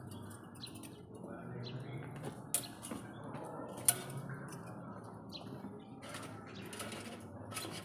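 Steel reinforcing bars being tied with wire: scattered light metallic clinks, with two sharper clicks, one about two and a half seconds in and a louder one near four seconds.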